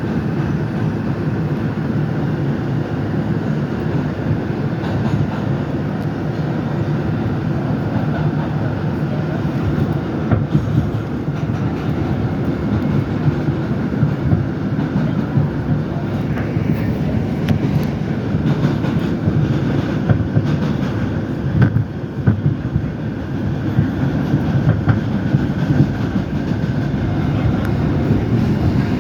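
R142 subway train running on its track: a steady rumble with wheels clicking over rail joints now and then.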